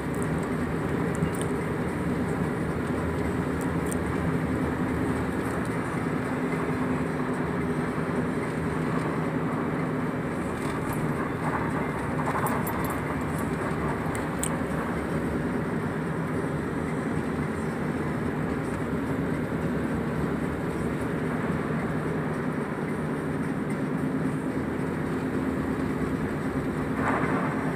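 Steady engine and road noise inside the cab of a moving Ford vehicle as it drives along at an even speed.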